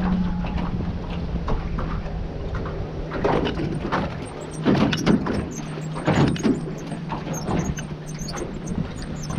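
Motorboat engine humming at a steady pitch, fading slightly, with a series of sharp knocks and clatter over it in the middle stretch.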